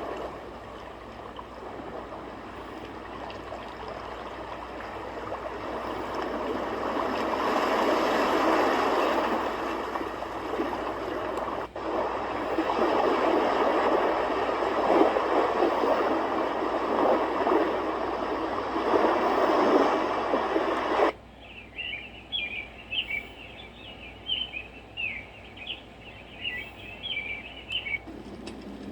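Sound machine playing a rushing-water nature track that swells and eases. About 21 seconds in it switches abruptly to a quieter track of irregular high chirps.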